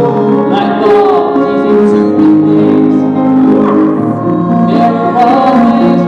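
A small group of men and women singing together, holding long notes, with piano accompaniment.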